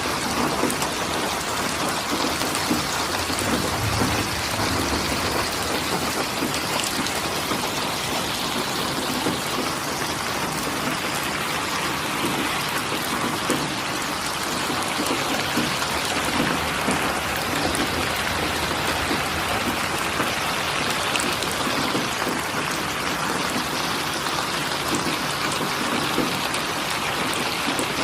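Steady rain falling, a dense even hiss of drops pattering on surfaces.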